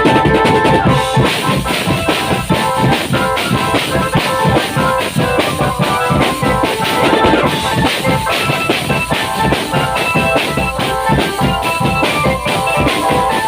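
Procession music played live: fast, dense drumming with a held melody line over it.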